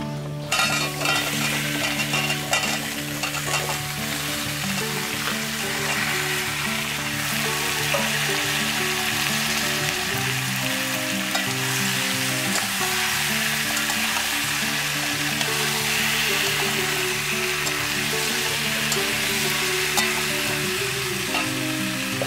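Cubed pumpkin and green vegetable stalks sizzling in hot oil in an aluminium wok, stirred with a metal spatula. The sizzle starts abruptly about half a second in as the vegetables go into the oil, then keeps up steadily with a few scrapes and clicks of the spatula.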